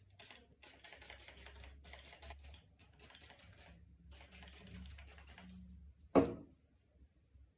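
Rapid light clicking in quick runs, then one sharp knock about six seconds in.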